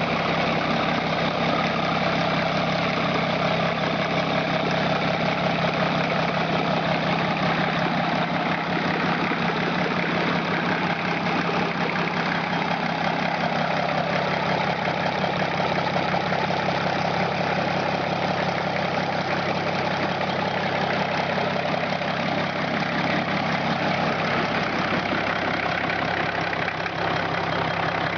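Borgward six-cylinder truck engine idling steadily at an even speed.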